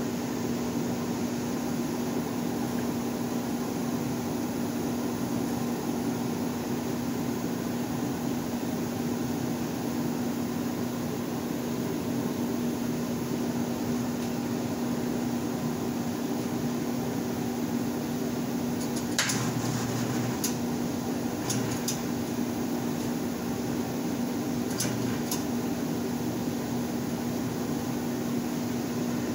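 A steady machine hum with one constant low tone, and a few sharp metallic clicks about two-thirds of the way through.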